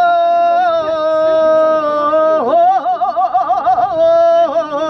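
A woman singing unaccompanied in a traditional folk style: long held notes that sink slightly in pitch, with a run of quick ornamental wavers in the middle of the phrase.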